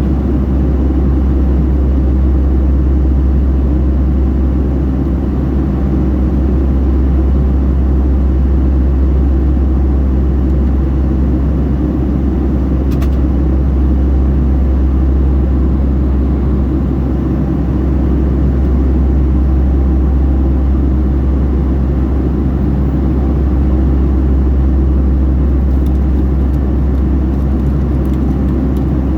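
Steady deep drone of a Boeing 757-300 in flight, its engine and airflow noise heard inside the passenger cabin. A brief click sounds about halfway through, and a few faint ticks near the end.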